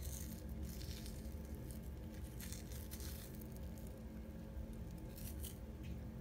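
Raw bacon rashers peeled apart by hand, making short sticky tearing and squishing noises several times, over a steady low hum.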